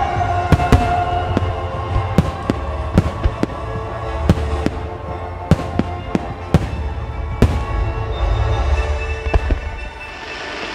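Aerial firework shells bursting in an irregular run of sharp bangs, more than a dozen, over music that plays on throughout. Near the end the bangs thin out.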